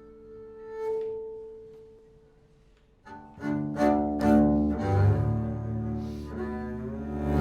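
Instrumental intro on double bass: a held note that fades away, then a few seconds in a run of new notes begins and builds.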